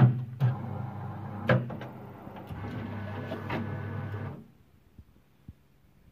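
RM BM 35 SF booklet maker running through a cycle as it staples, folds and square-presses a booklet: a steady motor hum broken by four sharp mechanical clacks, the loudest right at the start. The motors stop about four seconds in, as the folded booklet is delivered.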